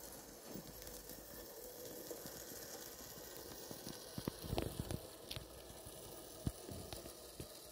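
Battery-powered O gauge model locomotive and coaches running along garden track, heard faintly as a steady hiss and low hum, with a cluster of soft clicks and knocks about four to five seconds in.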